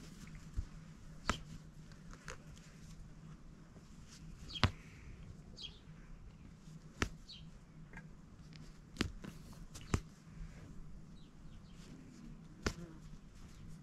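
Hand embroidery with yarn on cotton fabric: quiet handling and pulling of the cloth and thread, with about eight sharp clicks spaced irregularly over a steady low hum. A few faint bird chirps come about a third of the way in.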